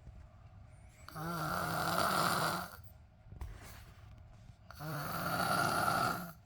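A sleeper snoring: two long snores of about a second and a half each, the first about a second in and the second near the end, with quiet breathing between them.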